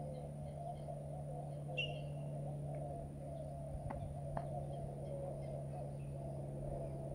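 Riverside ambience: a steady, wavering chorus of calling animals, with a single short bird chirp about two seconds in and a few faint clicks around four seconds.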